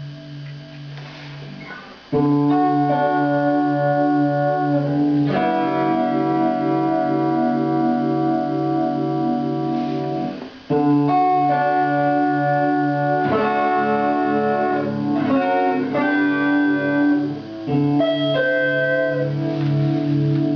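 Electric guitar played through a DIY Univibe-style pedal built on the LDR-based Neovibe circuit, its ringing chords pulsing with the pedal's regular throbbing modulation. A soft held note gives way to a loud chord about two seconds in, which rings until about ten seconds; a new chord follows, then several quicker chord changes.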